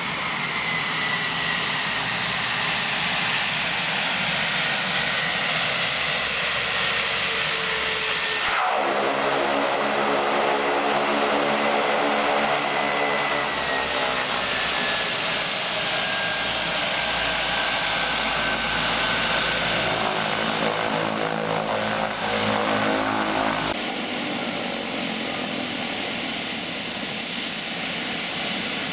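de Havilland Canada DHC-6 Twin Otter's turboprop engines running through the landing roll and taxi, a steady high turbine whine over propeller noise. About a third of the way in, a low, evenly pitched propeller drone joins the whine; it stops about three-quarters of the way through, leaving the high whine alone.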